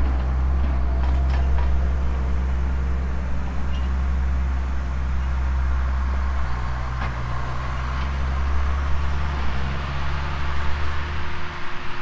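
Diesel tractor engine running steadily close by, a low drone whose note shifts about halfway through and drops away just before the end.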